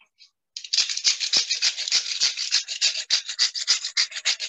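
Salt shaker shaken rapidly over a pot to salt the potatoes' cooking water, the grains rattling at about five shakes a second, starting about half a second in.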